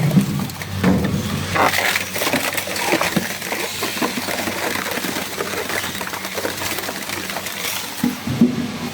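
Double-shaft scrap refrigerator shredder crushing refrigerators: a dense, irregular run of cracking and crunching over the shredder's steady low hum, with a louder crunch near the end.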